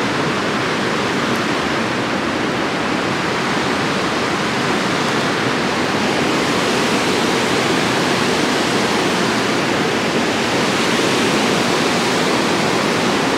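Loud, steady rushing of water churning through a dam spillway, an even noise with no break.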